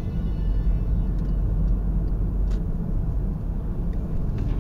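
Steady low rumble of engine and road noise inside a moving car, picked up by a dashcam, with a few faint ticks.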